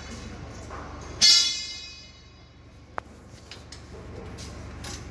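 A metal clang about a second in that rings and fades over about a second, then a single sharp click near three seconds in, over a steady low hum.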